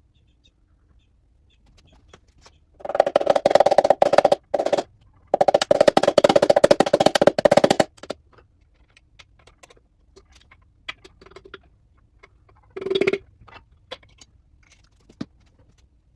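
Impact wrench hammering on engine fasteners in two bursts of about two seconds each, with a brief third burst near the end and light clicks of tools in between.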